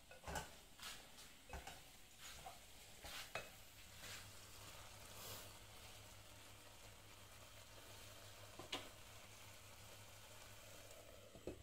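Faint stirring of prawn curry with a wooden spatula in a non-stick pan, light scrapes and knocks in the first few seconds over a low, steady sizzle. A single knock comes near the end.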